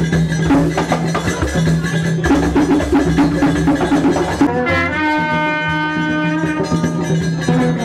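Instrumental music: drums and percussion keeping a steady beat under long held notes, with the held notes moving to a new chord about halfway through.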